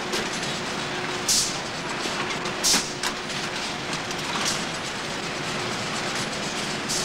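Bakery conveyor carrying bread tins, running with a steady mechanical rattle. A few short hissing bursts cut through it, the loudest about a second and a half and nearly three seconds in.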